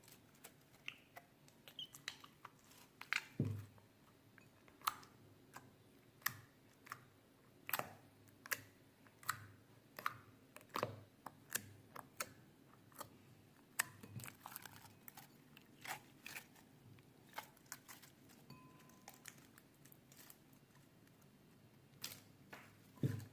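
Homemade glitter glue slime being squeezed and kneaded by hand, giving irregular wet clicks and pops, about one or two a second.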